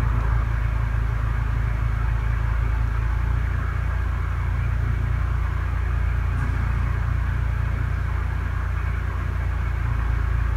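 A steady low hum and rumble that holds level throughout, with no distinct knocks or events in it.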